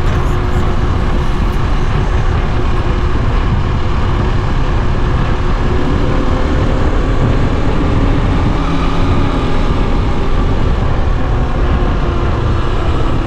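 Motoland XR 250 enduro motorcycle's single-cylinder four-stroke engine running steadily at cruising speed, heard from the rider's seat with wind rushing over the microphone.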